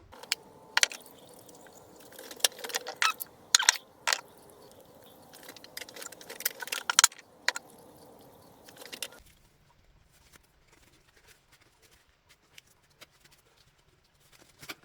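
Scattered sharp clicks and light metallic clatter of engine parts being handled and packed, stopping about nine seconds in, after which it is nearly quiet.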